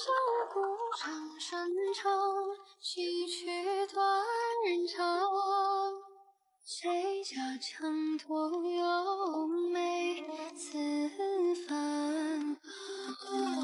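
Background song: a woman's voice singing a melody with long held notes, pausing briefly about halfway through.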